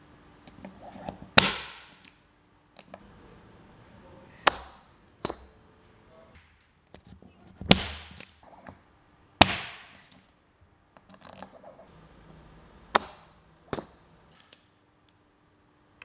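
Böllhoff TB-M spring-tension tang break-off tool firing into HELICOIL thread inserts in a metal block: a series of sharp metallic snaps a few seconds apart, each as the spring trips and knocks the driving tang off an installed insert. Some of the snaps ring briefly, and softer clicks of handling the tool fall between them.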